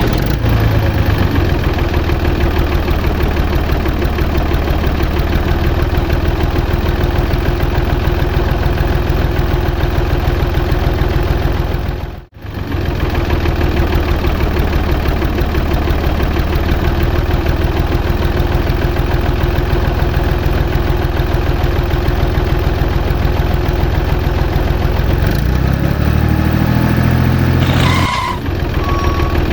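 Tractor engine running steadily. It breaks off for a moment around 12 seconds in, then revs up with rising pitch near the end before cutting off sharply.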